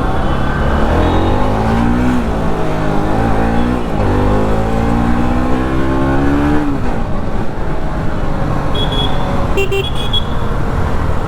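Bajaj Pulsar NS 200 single-cylinder engine accelerating through the gears. The engine note rises three times and drops back at each upshift, at about two, four and seven seconds in, then settles into steady running amid road noise.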